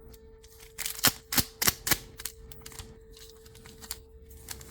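A quick run of about five sharp clicks and snaps about a second in, then fainter ticks, from handling a trading-card booster pack and its cards. A steady hum sits underneath throughout.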